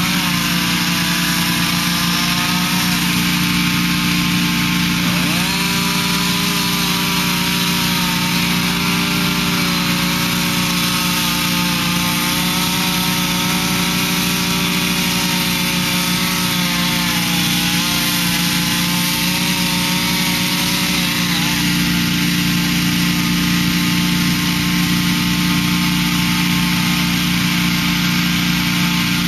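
Two-stroke firefighting power saw running at high speed while cutting through a shingled roof to open a ventilation hole. Its pitch sags and recovers several times as the blade loads up in the cut.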